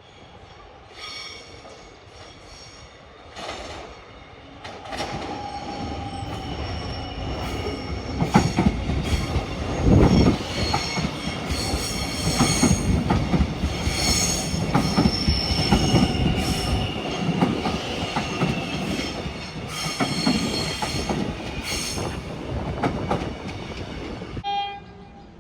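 X'Trapolis 100 electric suburban train running past, its wheels clicking over rail joints under a low rumble, with high-pitched wheel squeal. It builds over the first several seconds and is loudest about ten seconds in.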